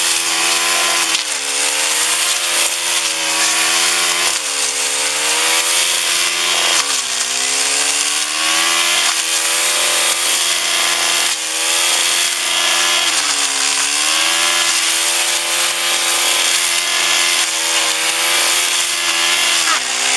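Petrol brushcutter with a BrushDestructor metal blade running at high revs while cutting lantana and long grass. The engine note sags and recovers every few seconds as the blade bites into the brush under load.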